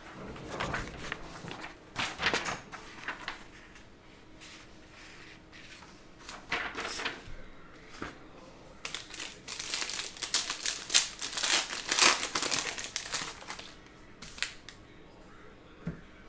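Foil trading-card pack crinkling and tearing as it is handled and ripped open, in two spells of rustling, with the longest and loudest from about nine to thirteen seconds in.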